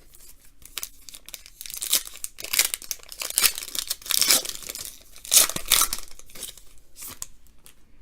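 A trading-card pack wrapper being torn open and crinkled by hand, in a run of irregular rustling tears, heaviest from about two to six seconds in.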